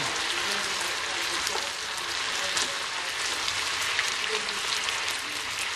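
Food frying in a pan: a steady sizzle with many small crackles and pops.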